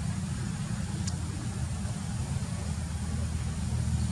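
A steady low rumble with a faint hiss above it and one faint tick about a second in.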